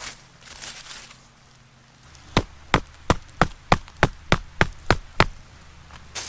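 About ten sharp, quick strikes on wood, roughly three a second, starting about two seconds in: wood being chopped or split at camp. Before the strikes there is some rustling.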